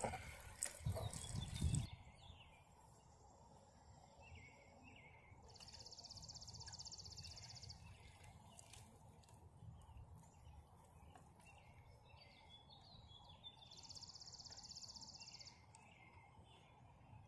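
About two seconds of rustling handling noise as a deer hide is worked by hand in a plastic bucket, then a quiet outdoor background in which a songbird gives a fast, high trill twice, with scattered chirps between.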